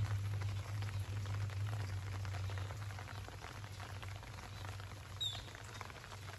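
Rain pattering on garden leaves and flowers, a dense run of small drop ticks over a steady low hum. A brief high chirp comes about five seconds in.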